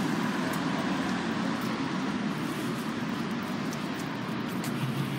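Steady city street traffic noise with no single event standing out.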